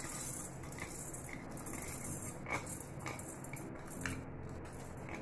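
A spatula clicking and scraping lightly against a hot kadai a handful of times as dry, unwashed sona moong dal is dry-roasted in it.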